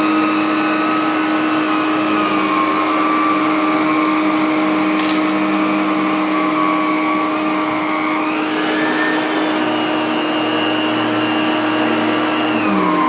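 Electrolux Renaissance canister vacuum running on carpet with its power nozzle, a steady motor whine whose pitch rises about two-thirds of the way through and drops back near the end. A brief click about five seconds in. The nozzle really grabs onto the carpet.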